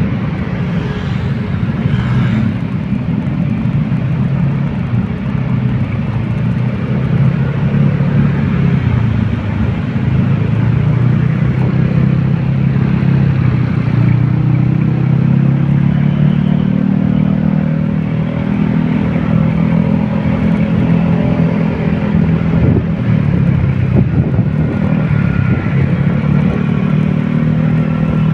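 Road traffic with a vehicle engine running steadily, a constant low rumble whose pitch rises a little about halfway through and then holds.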